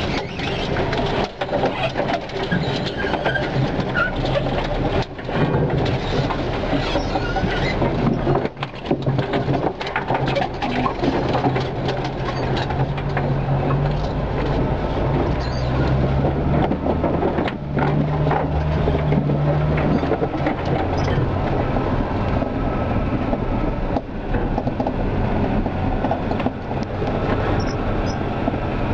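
A 4x4 driving slowly through dense brush, heard from inside the cab. The engine runs low under a continual scraping and brushing of branches and bushes along the bodywork, with many sharp knocks and rattles as the vehicle bumps along the rutted track.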